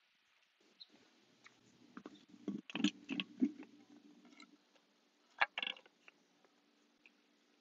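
Pool skimmer being opened and checked: a cluster of small plastic clicks and knocks about two to three seconds in, and another sharp knock a couple of seconds later. Under them is a faint steady hum from the pool pump, which is running and drawing water down into the skimmer.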